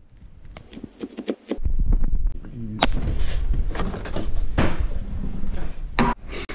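Kitchen handling sounds: a fridge door and cupboard doors opened and shut, with a run of sharp clicks and knocks as things are put away.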